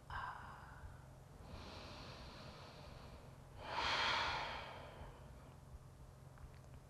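A woman's slow, deep belly breath: a faint inhale, then a louder breathy exhale about four seconds in that fades over a second or so.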